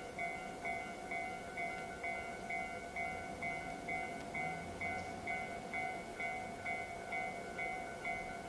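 Japanese railway level crossing's electronic warning bell starting up and ringing steadily, a repeated ding about twice a second, signalling that a train is approaching and the crossing is closing.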